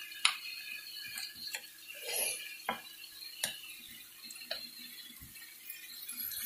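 Spatula stirring chunks of raw lamb and onion in a nonstick wok, with a sharp tap against the pan about once a second over a faint sizzle as the meat fries.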